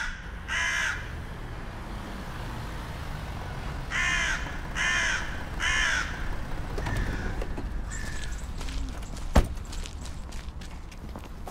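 Crows cawing: two harsh caws at the start and three more about four seconds in, then a few fainter calls. About nine seconds in comes a single sharp knock, followed by lighter clicks and knocks.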